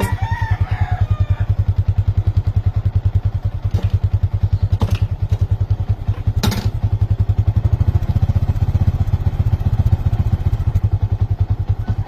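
Yamaha Sniper 150's fuel-injected single-cylinder four-stroke engine idling steadily, a rapid, even exhaust putter. A few faint clicks come through about four, five and six and a half seconds in.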